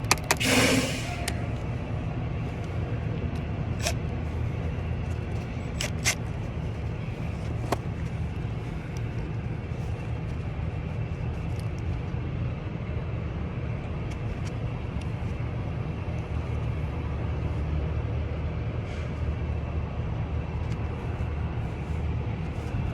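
Steady low rumble of a vehicle engine running nearby. A few sharp metallic clicks from hand tools and bolts come about four, six and eight seconds in.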